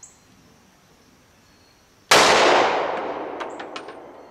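A single .357 SIG pistol shot from a Glock 32, about two seconds in, its report dying away over about two seconds. A few light metallic clinks follow, typical of the spent brass case landing.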